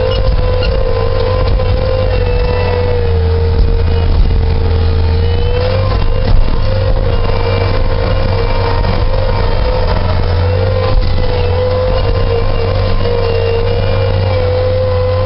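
Bobcat skid-steer loader running steadily while pushing snow, heard from the operator's seat inside the cab: a deep hum with a steady whine that wavers slightly in pitch. A few short knocks come through, the loudest about six seconds in.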